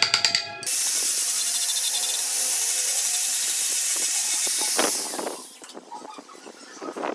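A steady, high hiss that holds for about four seconds and then fades out, following the tail end of a rhythmic music track.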